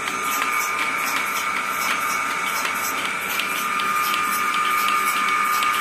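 Double-bucket milking machine running: a steady whine from its vacuum pump under a rhythmic, hissing tick from the pulsators, a few beats a second.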